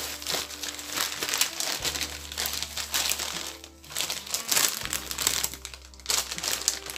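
Empty Chio crisps bag crinkling as it is handled and turned over: a dense run of crackles with a few brief pauses.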